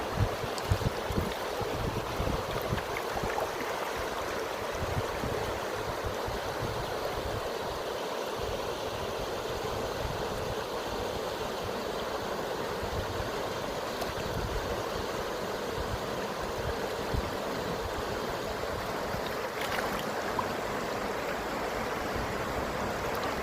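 Steady rushing and lapping of river water at the water's edge, with irregular low rumbles and a few pops near the start.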